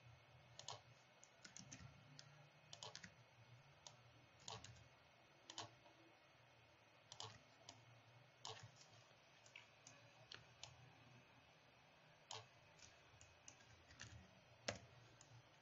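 Faint, scattered clicks of a computer mouse and keyboard, irregular, about one a second, over a faint low hum.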